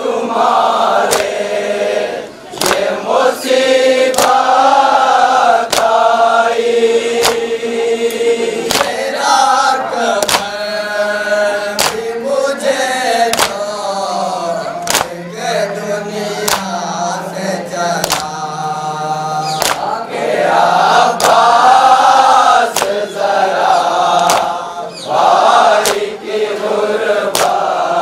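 A noha, a Shia mourning lament in Urdu, sung by a lead reciter into a microphone with a group of men chanting along. Under the singing, rhythmic matam: sharp hand-on-chest slaps about every one and a half seconds.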